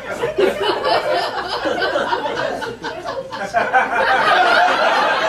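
Audience laughing, the laughter swelling louder about three and a half seconds in.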